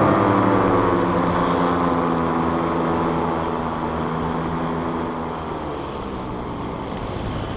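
Polini Thor 250 single-cylinder two-stroke paramotor engine and propeller on a tandem paratrike, throttled back: its pitch slowly falls and the sound fades over the first five seconds or so.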